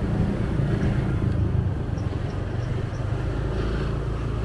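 Motorbike engine running steadily as it rides along, a low even hum over road noise.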